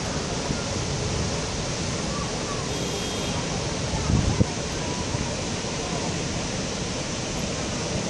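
Steady rushing noise of the Keve river waterfall, with a brief low rumble about four seconds in.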